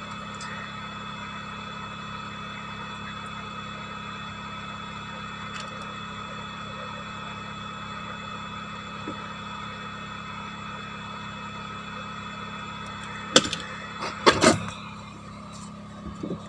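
Steady hum of a hot-air rework station's blower fan, with a few sharp knocks near the end.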